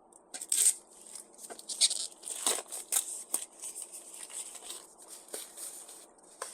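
Packing material being torn and crinkled as parts are unwrapped: an irregular run of short rustling, crinkling bursts.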